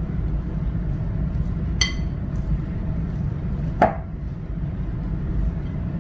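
Hands mixing and kneading crumbly butter-and-flour dough with egg in a glass mixing bowl, with a ringing clink against the glass about two seconds in and a sharper knock near four seconds. A steady low hum runs underneath.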